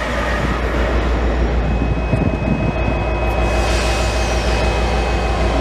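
Class 57 diesel locomotive standing at the platform with its engine idling: a steady low rumble, with a thin steady high whine from about a second and a half in.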